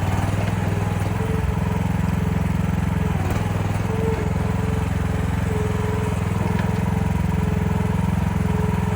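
Small engine of a Chinese mini excavator running steadily, with a fainter whine above it that comes and goes.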